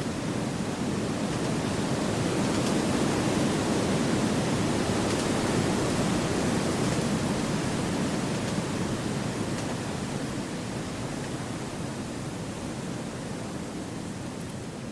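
Wind rushing through forest trees as a steady, even noise that swells over the first few seconds and then slowly eases off.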